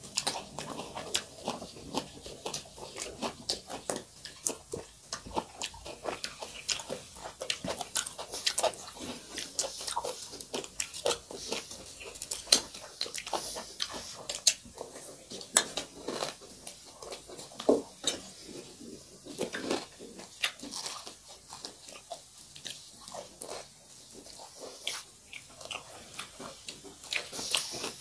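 Close-miked chewing and biting of crunchy food, with many irregular sharp crackles and crunches throughout.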